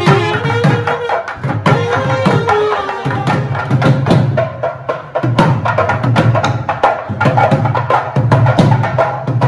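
A South Indian wedding band playing: thavil drums beating fast and steadily under a saxophone melody. The saxophone is strongest in the first few seconds and comes back near the end.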